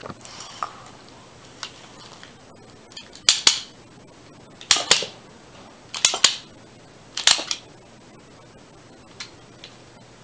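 Rubber-band-firing Lego blowback pistol shot four times, a little over a second apart, each shot a quick double snap.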